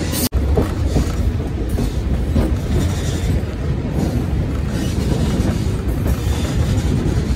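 MEMU electric multiple-unit train running at speed, heard from inside the coach: a steady rumble of wheels on rails with clacks over the rail joints.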